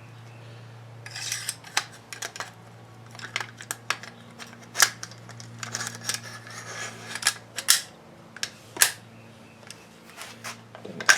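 Metal-on-metal clicks, knocks and scraping as a CMMG .22LR conversion bolt is slid into an AR-15 upper receiver. There is a short scrape about a second in, then scattered sharp clicks, the loudest near the end, over a steady low hum.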